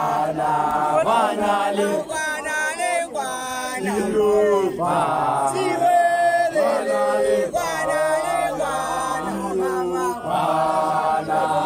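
A young man chanting loudly in long phrases that bend up and down in pitch, with other voices joining in: a Sesotho initiation-school chant.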